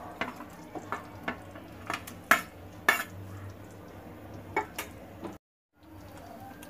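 A ceramic plate and a wooden spatula knocking and clinking against a cooking pan as fried mutton koftas are slid off the plate into curry gravy: a dozen or so sharp knocks over a few seconds, the loudest two around the middle. The sound cuts out for a moment near the end.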